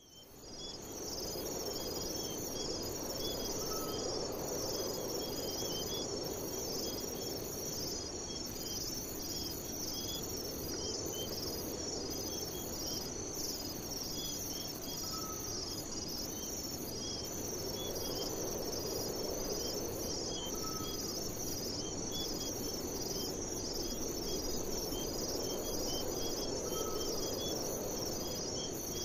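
Night insect chorus: a steady fast-pulsing trill with a second, higher layer that breaks off briefly at regular intervals. It fades in over the first second, with a low rushing noise that swells and fades beneath it and a faint short call four times.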